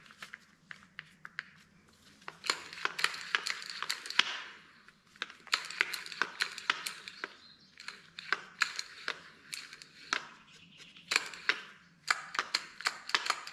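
Plastic and metal parts of a Stihl MS210C chainsaw's recoil starter being handled: many sharp clicks and knocks, some scraping about three seconds in, and quick runs of clicks near the end.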